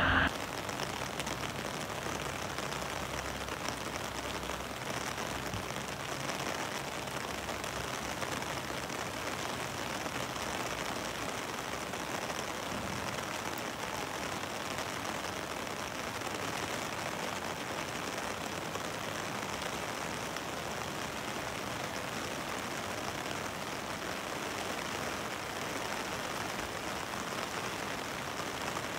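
Steady, even hiss of water in a flooded street, unbroken throughout.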